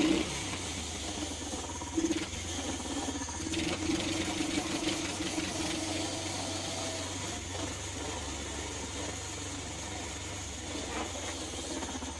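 Duromax 440XPE 18 hp small engine running at low speed, pulling a car in first gear, with a steady low hum and a short knock about two seconds in.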